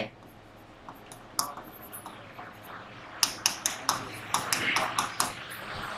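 Stylus tapping and clicking on the screen of an interactive writing board during handwriting: a few sharp taps at first, then a quick cluster of them about three to five seconds in.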